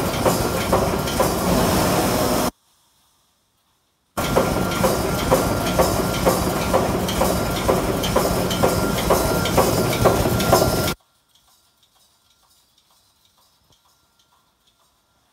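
Pneumatic poultry-cage mesh welding machine running, its electrode bank clamping and welding the cross wires at about two strokes a second over a steady mechanical clatter. The sound drops out for a moment about 2.5 seconds in, and after about 11 seconds only faint ticking remains.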